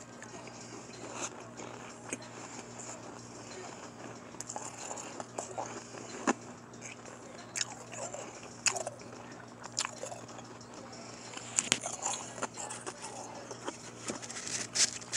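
A person biting and chewing a mix of powdery shaved ice and crushed ice, giving irregular sharp crunches with short soft gaps between them. The crunches come closer together and louder near the end, over a faint steady hum.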